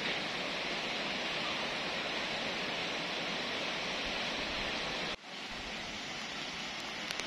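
Steady rush of river water pouring over a low concrete weir. About five seconds in it cuts off abruptly to a quieter steady hiss.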